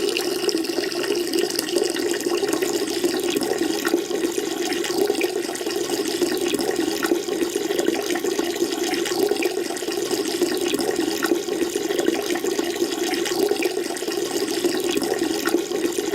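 Peeing sound effect: a steady, unbroken stream of urine splashing into toilet-bowl water.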